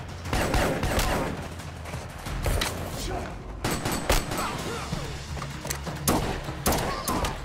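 Gunfight in a stone tunnel: an assault rifle and other guns fire a handful of scattered single shots and short volleys, each a sharp crack.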